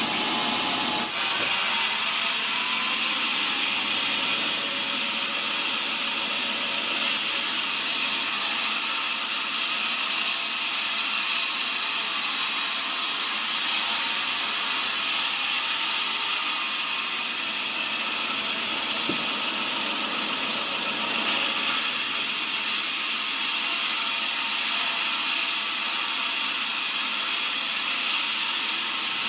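Sawmill saw running steadily as it rips lengthwise through a cempaka log, a continuous high-pitched cutting noise with no breaks. Cempaka is a fairly soft wood.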